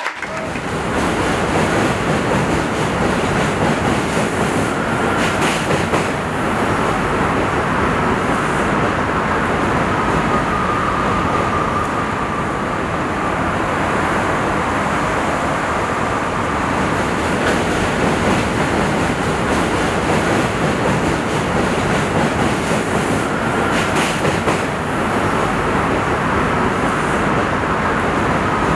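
Subway train running on the tracks: a steady, loud rumble with a faint high wheel squeal that comes and goes.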